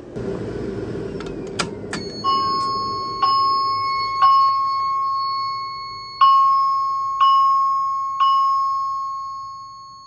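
Simplex voice-evacuation speaker strobe playing an electronic chime alert tone: two sharp clicks, then six chime strikes in two groups of three, about a second apart, each over a held ringing tone that fades away near the end.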